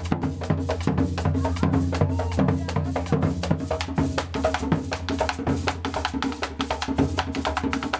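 Background music with a fast, steady percussion beat over a sustained bass line.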